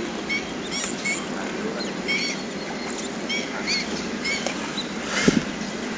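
Small birds chirping in short, repeated calls over a steady outdoor background noise, with a single short thump or splash about five seconds in.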